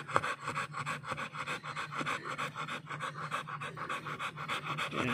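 American Bully dog panting in a quick, even rhythm. A single sharp knock sounds just after the start.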